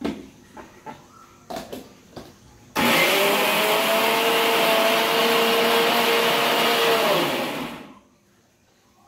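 A few knocks of the steel jar being set on a Steele mixer grinder, then its motor runs loud and steady for about five seconds, grinding chutney ingredients, and winds down after it is switched off.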